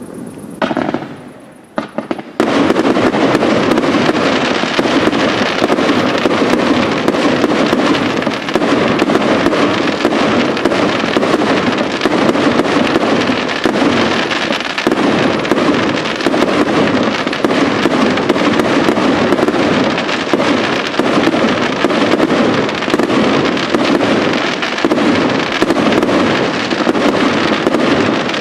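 Fireworks display going off. A brief rush of sound comes near the start, then from about two seconds in a dense, unbroken crackling of many small bursts keeps on.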